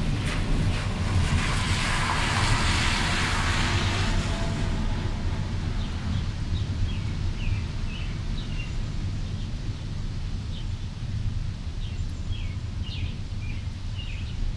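Storm-day outdoor sound over a steady low rumble: a rushing noise swells and fades over the first five seconds, then small birds chirp in short, scattered calls.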